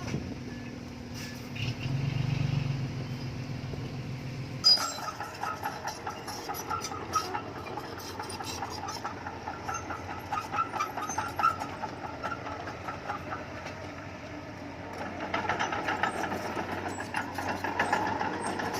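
Bulldozer's diesel engine running under load, with a rapid metallic clatter and squeal that sets in suddenly about five seconds in and grows louder near the end.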